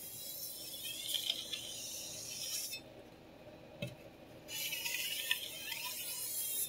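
A large chef knife's steel edge drawn across a sharpening stone in two long, scratchy strokes of about two and a half seconds each. There is a short click between the strokes.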